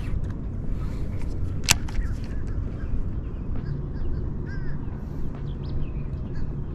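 Low steady outdoor background noise with a few faint bird chirps and one sharp click a little under two seconds in.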